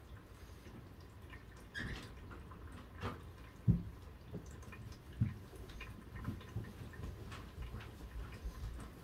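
Rainwater dripping in irregular single drops over a faint hiss of light rain, heard from indoors through a window; two drops about three and a half and five seconds in land as louder low taps.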